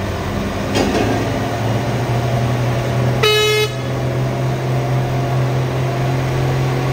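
Diesel engines of two Nissan tanker trucks running under load as they climb a hill together, a steady low drone. A vehicle horn toots once, for about half a second, a little over three seconds in.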